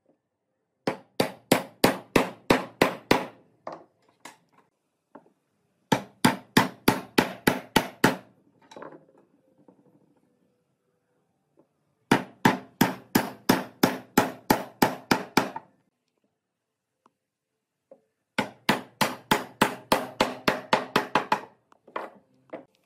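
Wood knocking on wood in four quick runs of sharp knocks, roughly four a second, with pauses of a few seconds between, as pine slats are knocked down into the slots of a wooden base.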